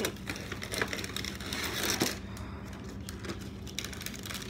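Close crackling and crunching handling noise right at the microphone: many small, irregular sharp clicks, over a steady low hum.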